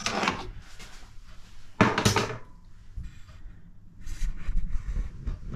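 Kitchen handling noises as freshly baked loaves are moved about on a wooden board: two short rustling scrapes, the louder one about two seconds in, then a patter of light knocks and scrapes near the end.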